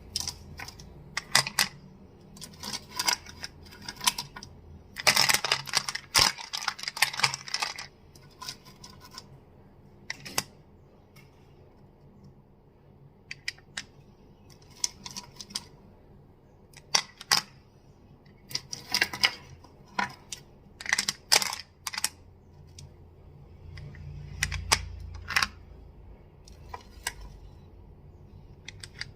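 Crystals clicking and clacking against each other in irregular clusters of sharp clicks with short pauses, with a dense, rapid run of clacking about five to eight seconds in.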